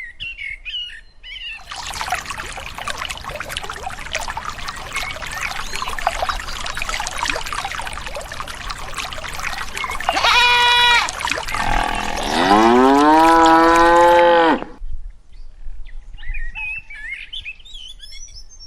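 Cattle mooing: a short steady call about ten seconds in, then a longer call that dips and levels off, over a steady rushing noise that cuts off abruptly after about fifteen seconds.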